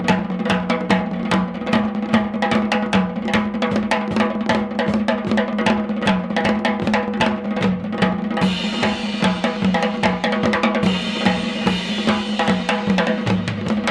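Early-1970s rock band instrumental led by a drum kit playing a busy, steady beat over a bass line. A bright cymbal wash comes in about two-thirds of the way through and drops out near the end.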